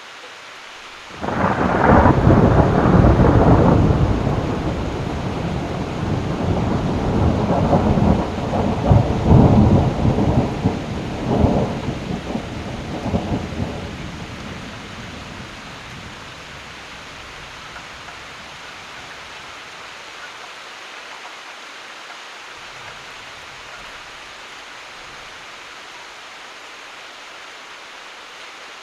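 A clap of thunder breaks in about a second in and rolls on in several loud rumbling surges for some twelve seconds before dying away, over steady heavy rain.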